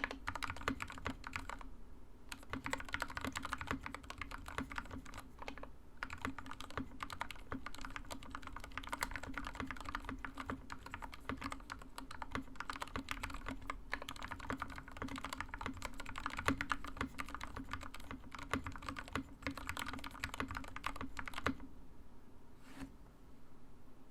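Continuous fast typing on a KBD6X custom mechanical keyboard with lubed Stealios linear switches, a brass plate and thick KAT-profile keycaps, a dense run of keystrokes with short pauses now and then. The typing thins to a few scattered strokes near the end.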